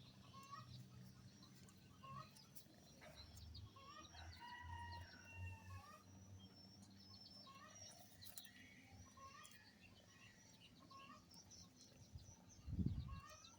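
Faint, short bird calls and chirps repeating at intervals, with one low thump near the end.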